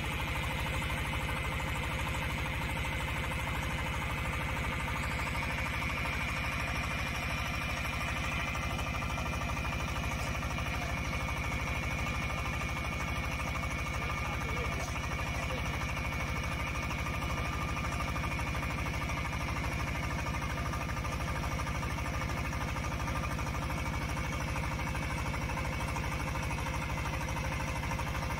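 DH150 portable water well drilling rig running steadily with its engine under load, turning the first drill pipe forward as it drills down. The engine has an even, fast firing pulse that holds throughout without revving up or down.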